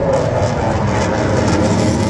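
Aircraft engines flying overhead: a loud, steady engine noise.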